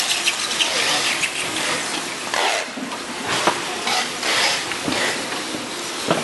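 Plastic bubble wrap rustling and crackling close to the microphone, a dense run of small irregular crackles.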